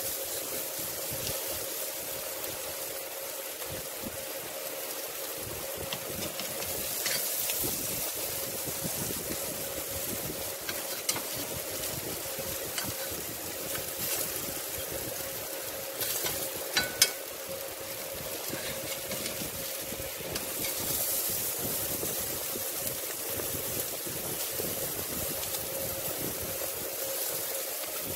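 Salmon steaks sizzling on hot grill grates over open flame, with a steady hum underneath. A metal spatula scrapes and taps on the grates a few times, loudest about seventeen seconds in.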